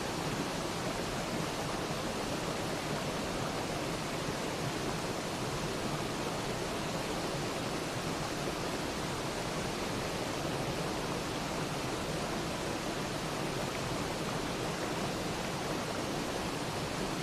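Steady rushing water, an even hiss that does not change.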